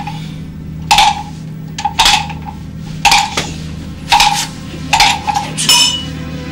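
A run of sharp metallic strikes, about one a second and coming closer together near the end, each ringing briefly, over a steady low drone.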